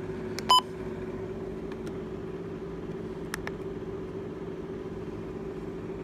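A single short electronic key-press beep from a Midland weather radio about half a second in, over a steady low hum. A faint click follows about three seconds in.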